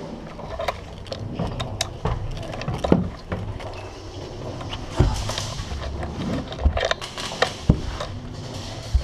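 Irregular sharp snaps and knocks from airsoft guns firing single shots and BBs striking, heard over rustling movement in an indoor field. The loudest cracks come a few seconds apart.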